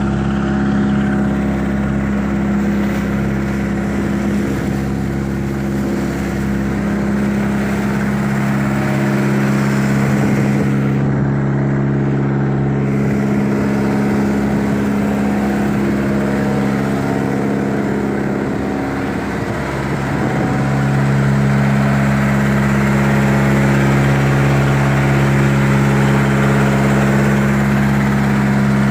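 A vehicle engine running at a steady speed. Its note wavers for several seconds midway, then settles back to a steady, slightly louder drone from about twenty seconds in.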